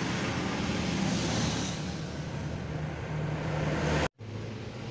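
Steady background noise with a low hum and hiss, no distinct event; the sound cuts out completely for a moment about four seconds in, then resumes.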